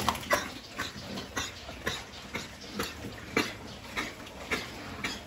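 A group of pigs eating from a trough: a steady run of short chomping sounds, about two a second.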